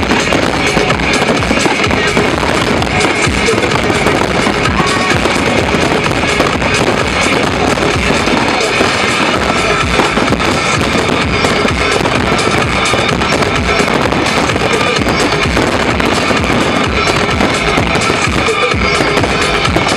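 Aerial fireworks bursting and crackling in a dense, continuous barrage of overlapping bangs, with music playing loudly over it.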